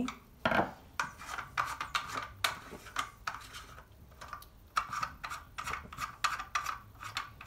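Plastic gland-port plugs being unscrewed from a plastic isolator switch enclosure: irregular scraping, rubbing and clicking of plastic on plastic.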